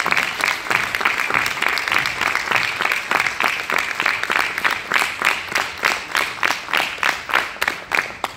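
Audience applauding. In the last few seconds the clapping falls into an even rhythm of about three claps a second, then stops.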